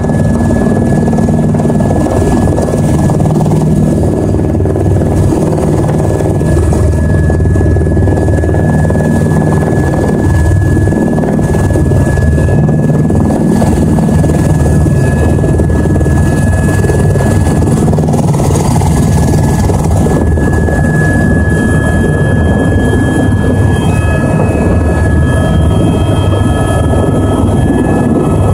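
Helicopter noise heard from inside the cabin: a steady loud rotor beat and a constant high turbine whine as the aircraft comes in to land on the airfield, with a few more whining tones joining in near the end.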